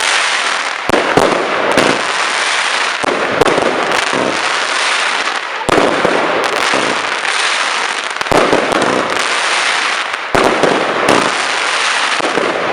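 Fireworks going off: dense, near-continuous crackling with many sharp bangs throughout.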